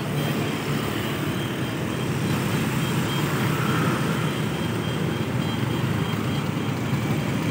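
Steady road traffic noise: motor scooters passing close by and a large speaker-laden truck moving slowly, a continuous engine din with a low hum.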